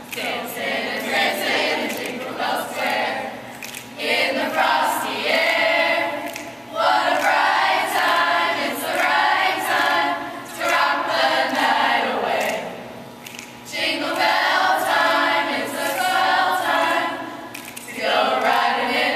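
A group of women singing a Christmas carol together, in phrases with short breaks between them.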